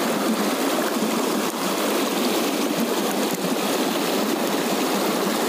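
Fast mountain river rushing and splashing over rocks close by, a steady, even rush of water.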